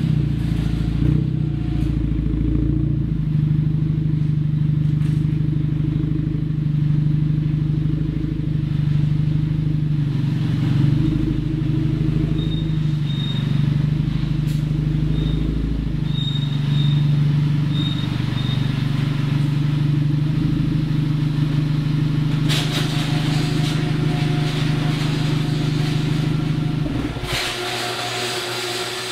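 VW Golf GTI Mk6's turbocharged 2.0-litre four-cylinder, heard from inside the cabin through an SPM 3-inch catless downpipe and a Magnaflow 3-inch cat-back exhaust. It runs at low speed with a steady deep drone that swells and eases a little, then stops abruptly near the end.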